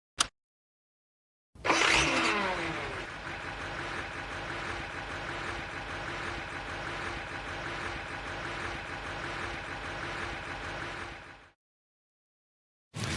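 Sound effect of Jupiter, the cartoon fire engine from Fireman Sam: its engine starts with a loud burst that drops in pitch, then runs steadily at idle for about ten seconds before cutting off. A short click comes just before it.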